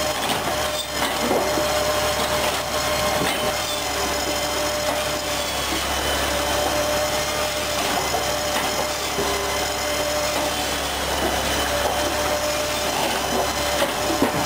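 Firewood processing machine running steadily, its saw cutting through logs over a constant machine hum, with a few brief knocks of wood on the machine.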